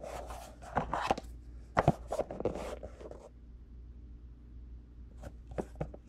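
Plastic control-cavity cover plate being handled and pressed onto the back of an electric guitar body: a run of scrapes and knocks for about three seconds, then a few light clicks near the end.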